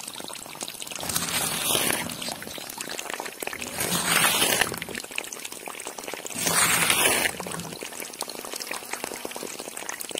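A thin stream of water pouring from a miniature pump's plastic tube into a small channel. The sound swells three times, about a second each.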